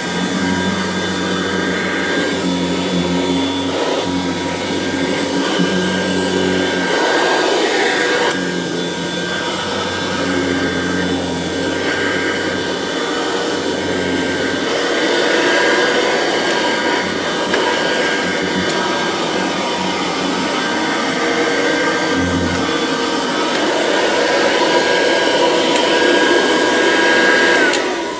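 Kirby Classic 3 upright vacuum cleaner running steadily while vacuuming floors: a constant motor and fan whine with a low hum that comes and goes. Right at the end it is switched off and the motor winds down with a falling pitch.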